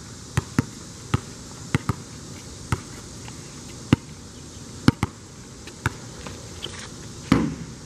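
Basketballs bouncing on an asphalt court: about a dozen single, irregularly spaced bounces from more than one ball being dribbled, with a louder bang near the end.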